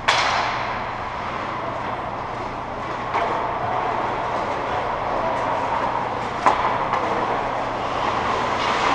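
Ice hockey skates scraping and carving on rink ice, making a steady hiss. A few sharp knocks cut through it, the sharpest about six and a half seconds in.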